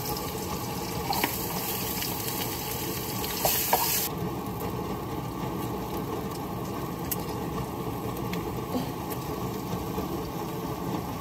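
Chopped vegetables sizzling in hot oil in a frying pan as they are stir-fried, the sizzle stronger for about the first four seconds and then easing, with a few faint clicks.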